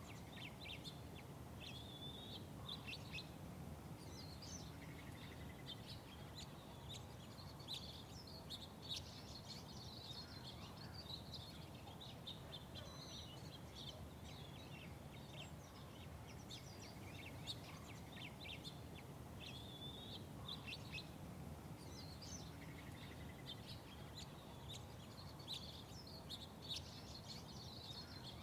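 Small songbirds chirping and twittering in quick, overlapping calls over a steady low background hum of city noise.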